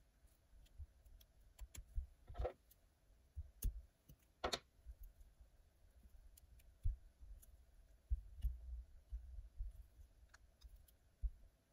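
Hands working at a fly-tying vise: faint scattered clicks and soft low bumps as materials and thread are handled on a streamer fly, with two brief scratchy rasps about two and a half and four and a half seconds in.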